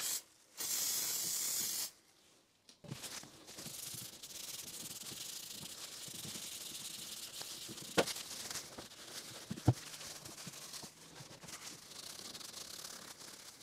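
Two short hissing bursts, then a long stretch of scrubbing and wiping with a scouring pad and rag on the cast-iron carriage of a South Bend 9C lathe. Two sharp knocks of metal on metal fall in the middle of the scrubbing, about a second and a half apart.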